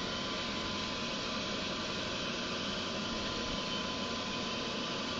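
Comet 3KVHD knee mill with its spindle running steadily, a constant hum with a faint steady whine.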